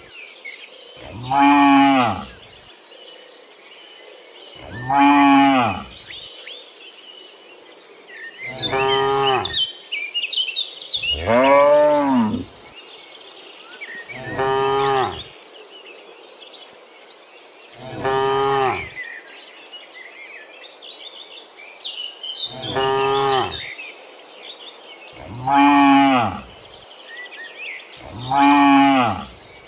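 Cattle mooing over and over, about nine separate moos of roughly a second each, a few seconds apart, each rising and then falling in pitch. A steady faint high insect drone runs underneath.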